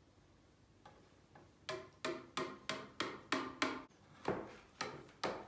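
Kitchen knife chopping point-down through set arabaşı dough and tapping the bottom of a metal baking tray. Sharp ticks with a brief ring come about three a second from under two seconds in, with one short pause midway.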